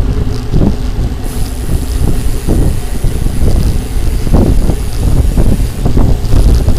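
Wind buffeting the microphone of a camera on a moving bicycle: a loud, uneven low rumble that surges irregularly.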